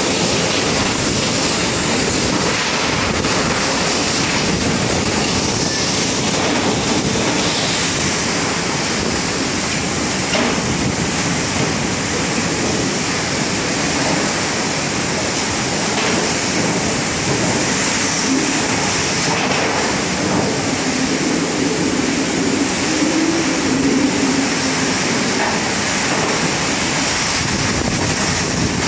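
Heavy rain falling steadily, a dense even hiss of drops on corrugated metal roofs and a concrete window ledge.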